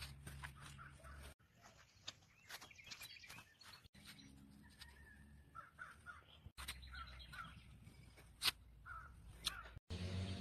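Quiet outdoor ambience with birds calling in short repeated calls, mostly in the second half, along with a few faint clicks. The sound breaks off abruptly several times.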